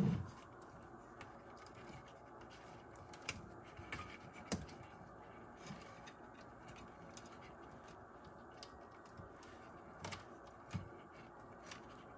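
Faint, scattered clicks and light scrapes of wires and plastic plug connectors being handled and pushed through the metal chassis of a transceiver, with a few sharper ticks about four and a half seconds in and again around ten to eleven seconds.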